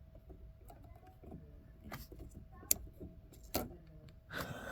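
Scattered clicks and small metallic knocks of hands working with meter probes and tools at a doorbell transformer, with one sharp click about halfway through and a clattering rustle near the end.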